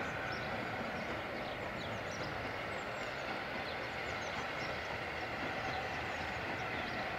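Steady hiss of steam escaping from a Southern Railway Q class 0-6-0 steam locomotive as it moves slowly, with no exhaust beats heard.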